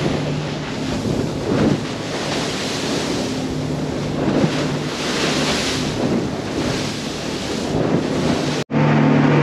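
Wind buffeting the microphone and the rush of sea spray and water against the hull on the bow of a fast boat running through swell, with a low engine drone underneath. Near the end it cuts off abruptly to a louder, steadier engine drone.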